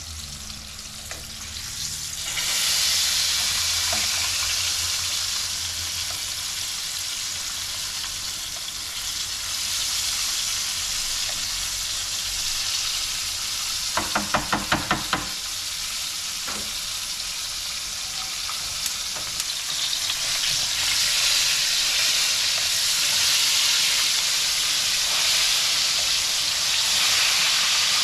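Cornstarch-coated mahi mahi pieces deep-frying in hot oil: a steady sizzle that grows louder about two seconds in and again in the last third. About halfway through comes a brief, rapid rattle.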